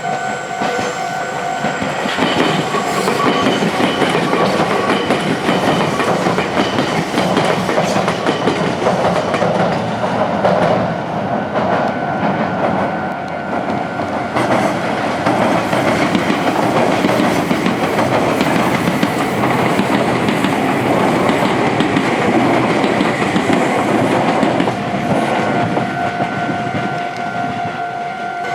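Meitetsu electric train passing close by, its wheels clattering over rail joints and junction pointwork for most of the time. A level-crossing warning bell rings steadily at the start and again near the end, covered while the train goes past.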